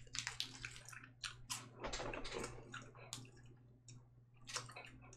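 Faint, irregular crinkling and ticking of a plastic candy wrapper being torn open and handled, mostly in the first three seconds.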